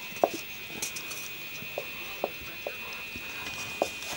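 Irish Wolfhound puppies biting and chewing on pieces of wood: scattered sharp clicks and knocks of teeth on wood, about six in four seconds, the first the loudest.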